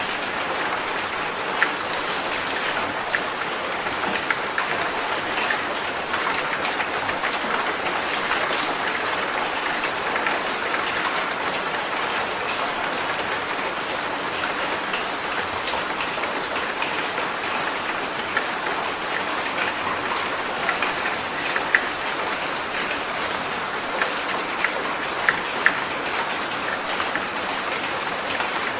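Steady rainfall: an even hiss of rain on surfaces, with scattered sharper drop ticks, a few louder ones near the end.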